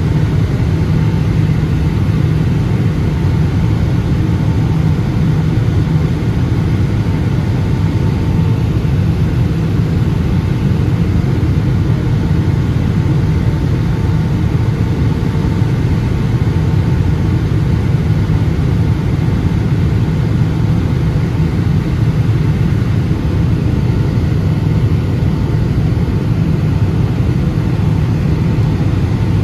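Steady cabin noise inside a Boeing 757-200 in flight on its descent: a loud, even rumble of engines and airflow over the wing, with a few faint steady tones above it.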